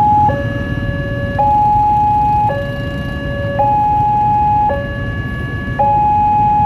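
Electronic two-tone warning alarm of a railway level crossing, alternating steadily between a higher and a lower tone, each held about a second. It signals that a train is approaching and the barrier is down.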